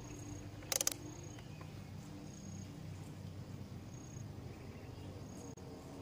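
Quiet outdoor background: a steady low hum with short, faint high chirps repeating every second or so. A quick cluster of clicks about a second in comes from analog multimeter test leads being handled and connected.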